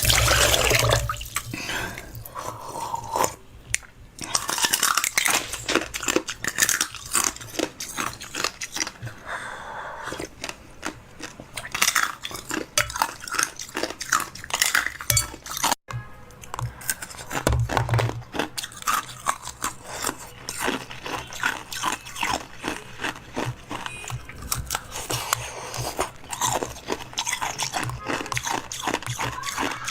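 Chewing and crunching of food, a quick irregular run of short crisp crunches and bites, broken off briefly about halfway through.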